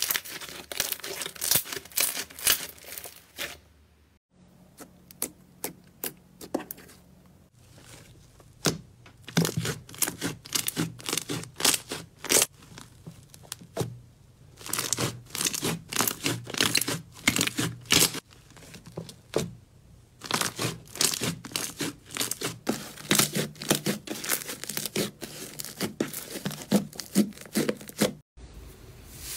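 Slime being squeezed and pressed by hand, giving runs of sharp, sticky crackles and pops. These come in spells, with quieter stretches between them.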